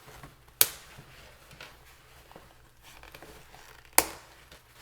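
Plastic curtain clips being pried off a fabric shade: two sharp snaps, one about half a second in and another near the end, with faint handling rustle between.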